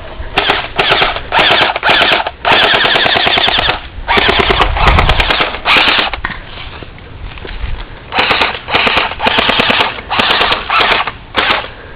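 Airsoft rifles firing rapid full-auto bursts of clicking shots, mostly short bursts with a longer run of about a second, a pause of about two seconds past the middle, then several more short bursts.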